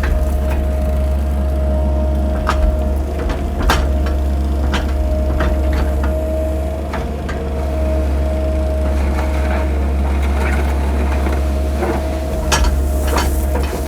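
Cat mini excavator's diesel engine running steadily under a constant whine as it works, with scattered knocks and clunks from the machine and bucket.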